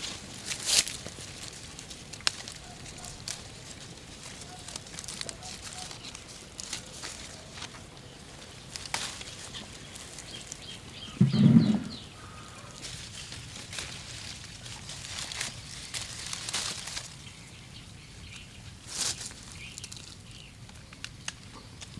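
Guava branches and leaves rustling, with scattered snaps and clicks as fruit is picked by hand. A short, louder low sound about halfway through.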